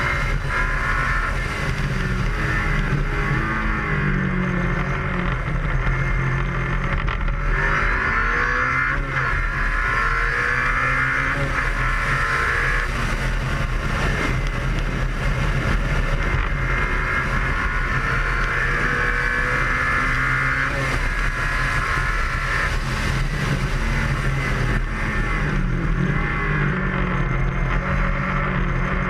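Ariel Atom's engine driven hard on a race track, its note repeatedly rising under acceleration and dropping at gear changes and braking, over a steady rush of noise in the open cockpit.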